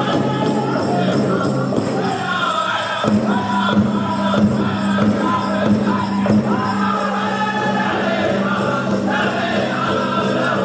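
Powwow drum group singing a chicken dance song in chorus over a steady big-drum beat, with the dancers' bells jingling. The singing swells about three seconds in.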